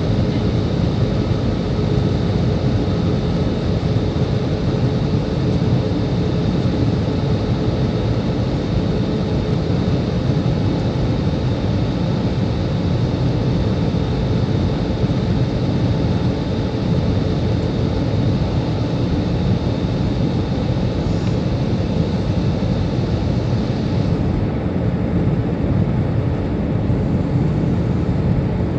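Steady airliner cabin noise inside an Airbus A320 in flight: a constant dense rush of engine and airflow noise with a faint steady hum, the hum fading out about halfway through.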